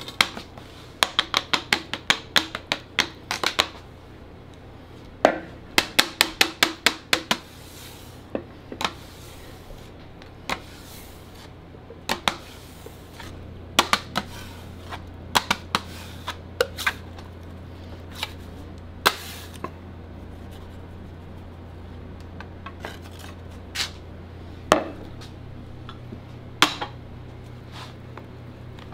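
Metal bench scrapers clicking and tapping against a granite slab as melted chocolate is worked by hand for tempering, in quick runs of sharp clicks, then scattered single knocks as the chocolate is scraped into a glass bowl and stirred. A low steady hum runs underneath.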